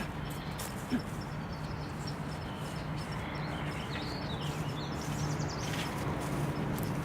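Small birds chirping over a steady low hum, with a single soft click about a second in.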